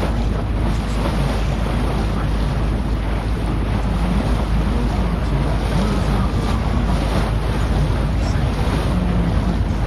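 Small boat under way on a river: its motor running steadily, water rushing along the hull, and strong wind buffeting the microphone.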